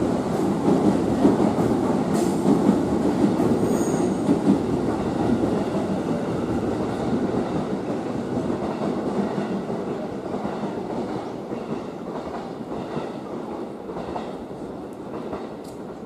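JR East E233 series electric commuter train pulling away from the platform, its running noise on the rails fading steadily as it moves off.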